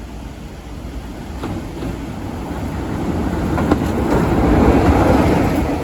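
Class 33 diesel locomotive running round its train, its engine and wheels on the rails growing louder as it approaches and loudest near the end, with a few sharp clicks along the way.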